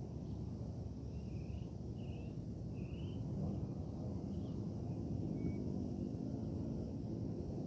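Steady low rumble of wind on the microphone on an open hilltop. A small bird chirps three times about a second in, then twice more faintly later.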